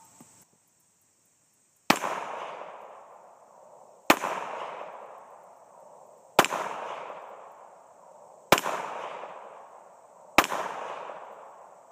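Colt 1903 Pocket Hammerless pistol in .32 ACP fired five times with hollow-point rounds, a shot about every two seconds. Each sharp report is followed by a long fading echo.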